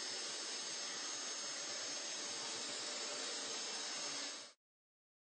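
Dyson DC23 canister vacuum running steadily, with its Turbinehead brush bar switched off, as it picks up large particles on a hard floor: an even rushing hiss with a faint high whine. It cuts off suddenly near the end.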